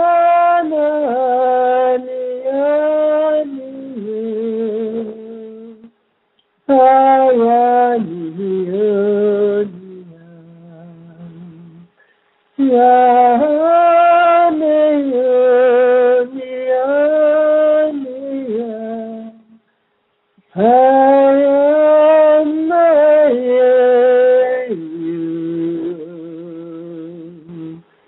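A single voice singing wordless held notes, chant-like toning for opening the throat chakra. It comes in four long phrases with short pauses between them, each stepping down from a higher note to a lower, quieter one.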